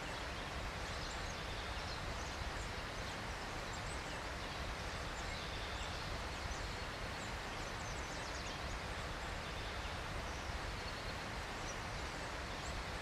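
Outdoor ambience: a steady hiss with a low rumble underneath, and small birds chirping in short, quick, high calls scattered through it.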